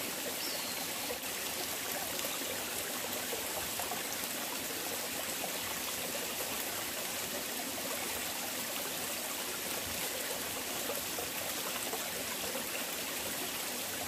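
Shallow mountain stream running over rocks: a steady, even water sound.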